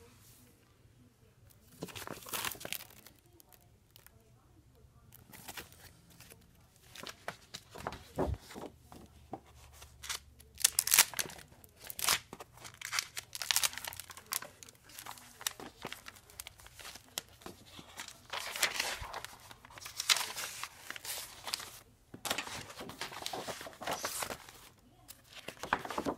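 Paper folders and sheets being handled and shuffled: rustling and crinkling of paper in short, irregular bursts.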